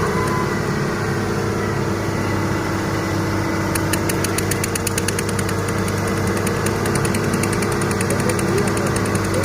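Heavy diesel engine running steadily at an even pitch. A fast, light ticking joins it from about four seconds in.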